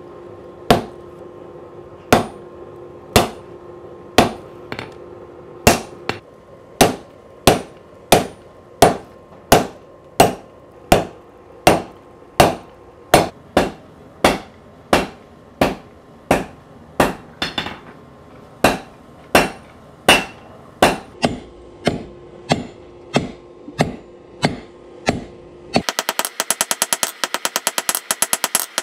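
Hand hammer striking a hot Damascus san-mai knife billet on the anvil as the tang is set down and drawn out. The blows are steady, about one a second at first and then a little faster, and end in a quick run of light rapid taps.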